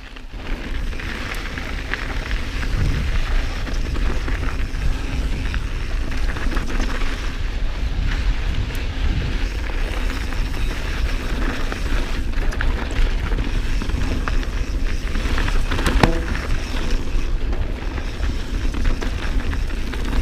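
A 2019 Santa Cruz Bronson mountain bike riding a dirt trail, with steady wind rumble on the microphone and tyres rattling over loose dirt and rocks. There is a sharp knock about sixteen seconds in.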